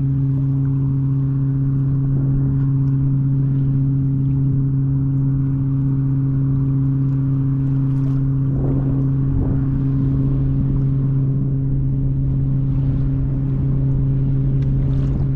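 A steady, low engine drone with a constant pitch and no change in speed, plus a brief burst of water noise about eight or nine seconds in.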